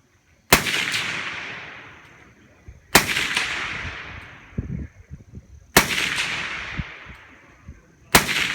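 Rifle firing four single shots, about two and a half seconds apart, each followed by a long echoing tail.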